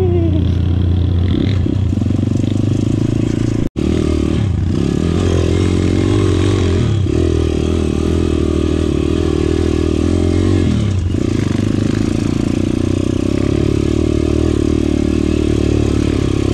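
Single-cylinder four-stroke trail motorcycle engine running under way, heard close up from the rider's position. The engine note eases off and picks up again several times as the throttle is worked on the dirt trail. The sound cuts out for an instant about four seconds in.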